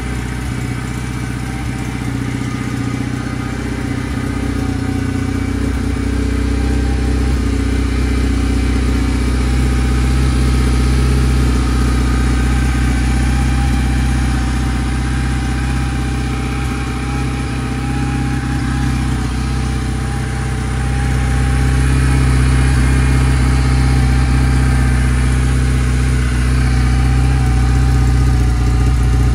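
Kawasaki W650's air-cooled parallel-twin engine idling steadily, getting a little louder about two-thirds of the way through.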